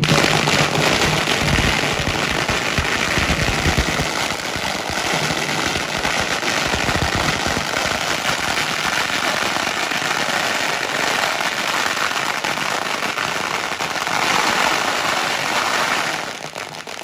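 A long string of firecrackers going off in a rapid, continuous crackle of bangs, dying away about sixteen seconds in.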